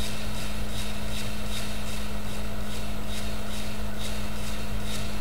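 Steady low electrical hum, with faint light ticks about twice a second.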